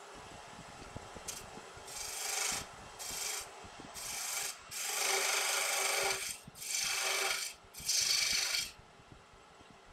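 Turning tool cutting a wooden box lid spinning on a wood lathe: about seven short hissing cuts as the lid is shaped, over the steady hum of the lathe.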